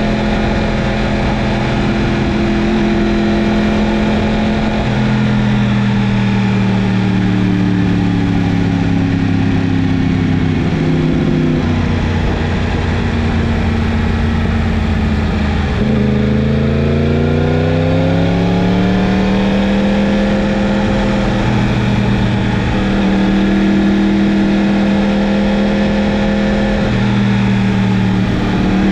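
Yamaha MT-10's crossplane inline-four running under way. The engine note holds steady, then drops twice over the first dozen seconds as the bike slows. About halfway through it climbs steadily under acceleration and levels off again.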